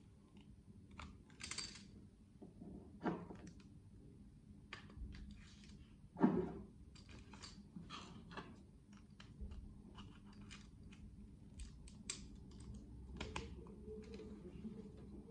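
Small plastic clicks and ticks of a Sony Cyber-shot DSC-S2100 compact camera being handled: its battery and card door is opened, two AA batteries and an SD card are put in, and the door is clicked shut. One louder knock comes about six seconds in.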